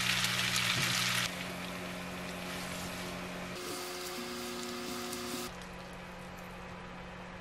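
Spaghetti, beef brisket and wild chives sizzling as they are stir-fried in a frying pan. The loud sizzle drops abruptly about a second in, then continues more quietly over a steady low hum.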